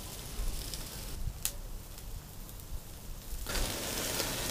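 Meat sizzling on a charcoal kettle grill, an even hiss with small crackles that starts abruptly about three and a half seconds in. Before it there is only a low rumble with a single sharp click.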